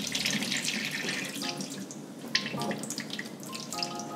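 Water draining and dripping from grated potato in a plastic colander at a kitchen sink, with scattered light knocks and ticks of the colander.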